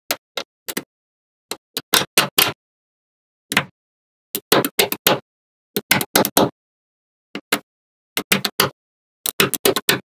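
Small magnet balls snapping together: short sharp clicks in quick clusters, with dead silence between them.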